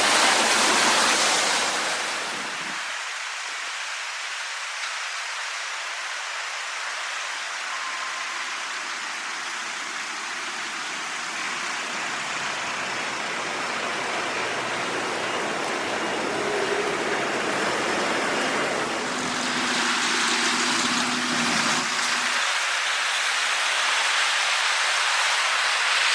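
Flowing floodwater of the swollen River Welland, a steady rushing noise that is loudest for the first two seconds, drops back, then slowly builds again from about two-thirds of the way through.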